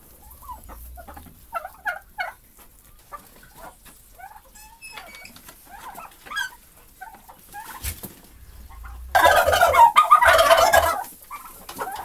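Short, scattered soft calls from poultry, then about nine seconds in domestic turkey toms gobble loudly for about two seconds in a rapid rattling run.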